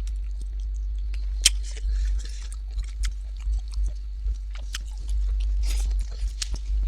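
Close-up eating sounds of a person chewing bony duck curry with rice: irregular wet smacks and sharp clicks a few times a second apart, over a steady low hum.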